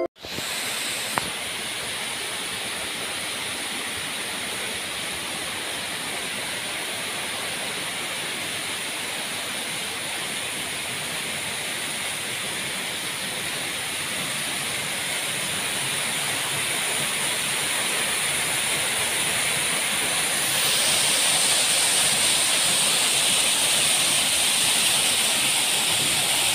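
Waterfall rushing: a steady, full hiss of falling water that grows louder toward the end, with a step up about twenty seconds in.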